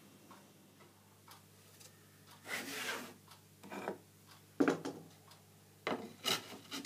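A thin plywood sheet being handled on a small benchtop table saw's top: a few short scraping rubs and sharp wooden knocks in the second half, the loudest a knock near the middle.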